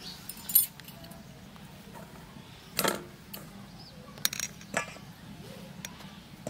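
A few sharp metallic clinks as a steel plate knocks against a stainless steel mixing bowl while flour is tipped and scraped into it. The loudest clink comes about half a second in.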